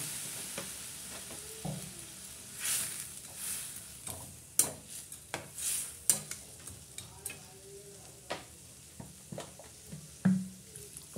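A spatula stirring and scraping instant noodles around an iron kadai, with the sizzle of water poured into the hot pan fading over the first second. Scattered scrapes and several sharp knocks of the spatula against the pan follow; the loudest knock comes near the end.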